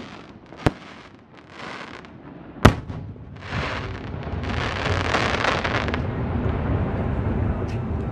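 Aerial firework shells bursting: two sharp bangs in the first three seconds. From about three and a half seconds in, a dense, continuous crackle like that of glittering crackle stars carries on steadily to the end.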